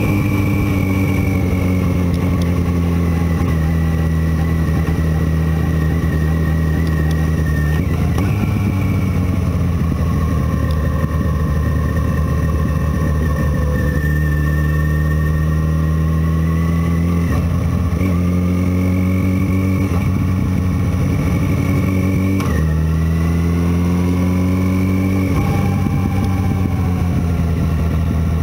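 Motorcycle engine running at road speed, heard from the rider's seat, its pitch climbing and easing through the bends and breaking off sharply at gear changes about three times.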